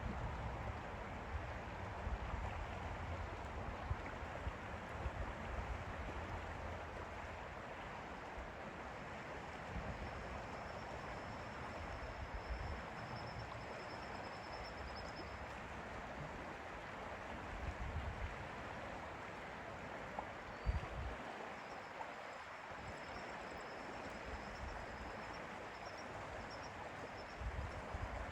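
Steady rush of lake water, with low gusts of wind on the microphone. A small bird sings high overhead: one long thin note a third of the way in, then a run of short repeated high notes in the last few seconds.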